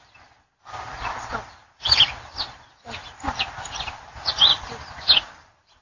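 Short high-pitched animal calls, several over a few seconds, among noisy stretches, heard through an outdoor security camera's microphone that cuts out briefly between sounds.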